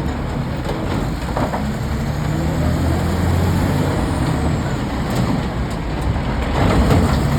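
Caterpillar 966F wheel loader's diesel engine running steadily under work, with a few sharp knocks and a louder stretch near the end.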